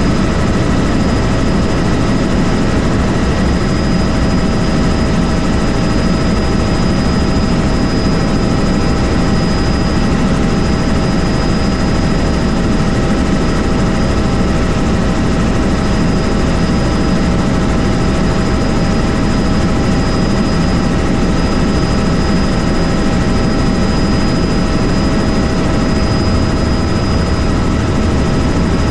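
Helicopter in steady flight: a loud, even rotor and engine rumble with steady whining tones over it, unchanging throughout.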